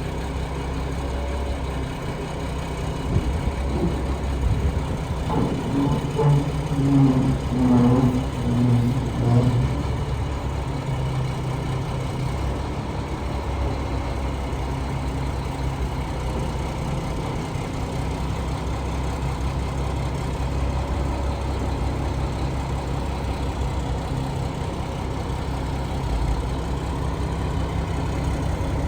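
Diesel engine idling steadily, with a louder, uneven stretch about five to ten seconds in.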